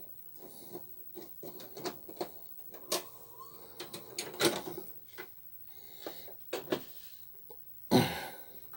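A VHS cassette is pushed into a Philips VCR and the loading mechanism draws it in and threads the tape: a run of mechanical clicks and clunks with a short motor whir. A louder clunk comes near the end as playback starts.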